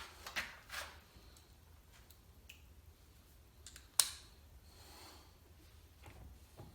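A few small clicks and taps of a screw and driver being fitted into a plastic car door panel, with one sharp click about four seconds in.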